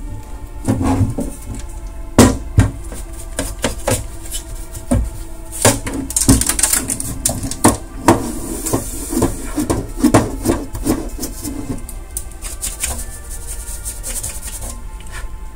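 Brushing and rubbing dust off Xbox console parts, mixed with scattered sharp clicks and knocks of the plastic parts being handled.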